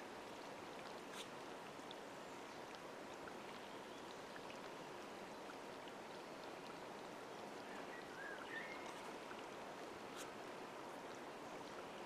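Steady rush of water as small waves lap at the lake edge, with a few faint clicks and a short wavering chirp about eight seconds in.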